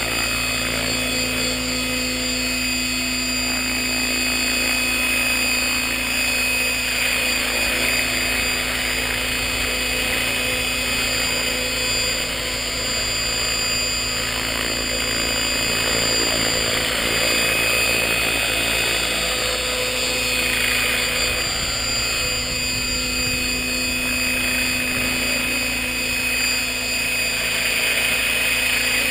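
Align T-Rex 600 radio-controlled helicopter hovering and flying low, its motor and rotor blades making a steady whine that swells slightly now and then. It is on a test flight after its vibration problems were repaired.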